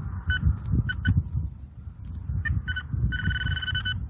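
Metal detector giving its target tone: a run of short electronic beeps at one pitch, then a longer held beep about three seconds in, signalling metal in the freshly dug hole. Low wind rumble on the microphone underneath.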